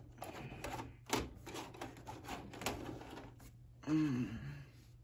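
Irregular clicks and rustling from a handheld camera being moved about at close range. A short hummed vocal sound comes about four seconds in.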